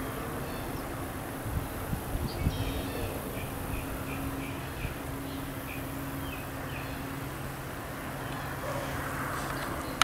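Outdoor ambience with a steady low hum and background noise, and a bird calling a quick series of about eight short, high chirps from about two to five and a half seconds in. A few soft thumps come early on.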